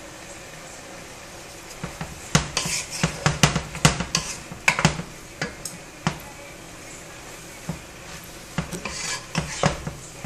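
Wooden spoon stirring sauce in a metal saucepan, knocking and scraping against the pot's sides and bottom in two spells of quick clatter, the first a couple of seconds in and the second near the end.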